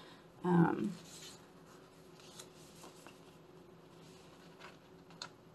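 Faint rustling and crinkling of a clear sticker sheet being handled as stickers are peeled off, with a few soft ticks. A short vocal sound, like a brief hum, comes about half a second in.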